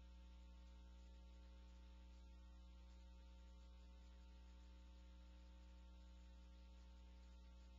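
Near silence with only a faint steady electrical hum, typical of mains hum in the recording.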